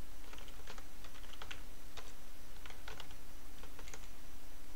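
Typing on a computer keyboard: an irregular run of short key clicks as a word is typed, over a steady low background hum.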